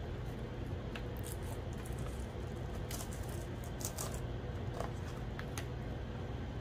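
Plastic cling wrap crinkling in short crackles as a hand presses and smooths it down over dough rolls, over a steady low hum.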